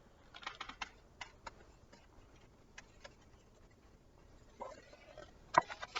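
Faint handling noise from a picture book being read aloud: scattered soft clicks, a brief rustle, then one sharper click near the end, as of a page being turned.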